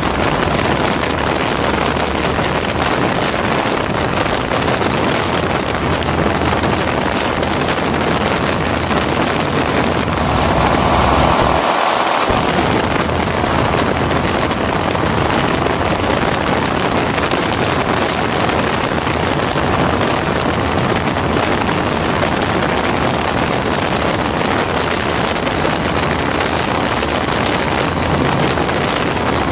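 Hirth F33 single-cylinder two-stroke engine of a MiniMax ultralight running steadily in level flight, mixed with wind noise on the helmet-mounted microphone. The wind hiss swells briefly about ten seconds in.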